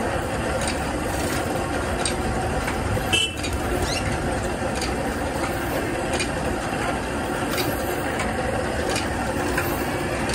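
Horizontal band sawmill running steadily, with scattered knocks as the log is shifted on its carriage and a brief high toot about three seconds in.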